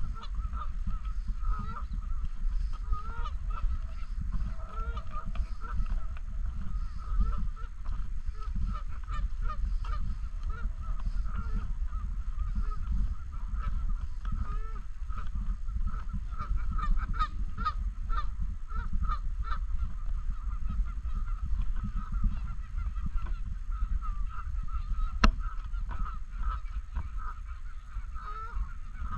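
A flock of Canada geese honking without pause, many short calls overlapping, over a steady low rumble. A single sharp click comes about 25 seconds in.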